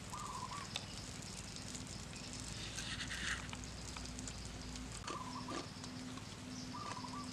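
Wood cooking fire crackling with a few sharp pops, over a low short call repeating about twice a second and a few brief chirps from animals nearby.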